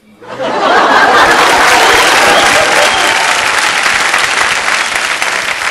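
Studio audience applauding. It swells up within the first half-second, holds steady, and eases off a little near the end.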